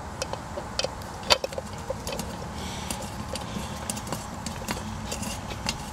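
Light scattered clicks and taps of a screwdriver working the hold-down screws of a new plastic distributor cap, starting the screws; the sharpest tap comes about a second in. A steady low hum runs underneath.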